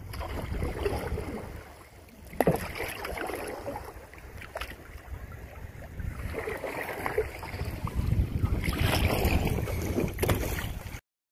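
Wind buffeting the microphone over choppy lake water, with waves slapping and splashing against a canoe's hull in gusts. The sound stops abruptly near the end.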